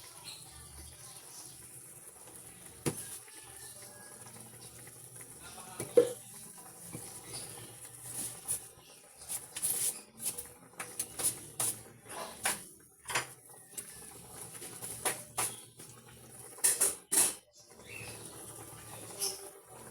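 Cooking sounds: irregular clinks and knocks of a utensil against a pot or pan, over a steady high hiss.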